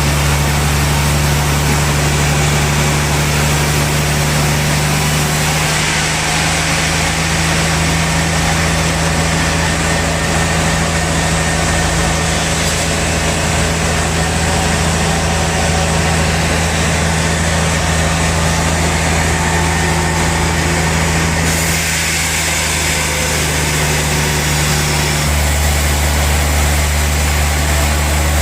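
Sawmill machinery running steadily while a large log is sawn, with a constant low hum. The tone shifts slightly about a third of the way in and again near the end.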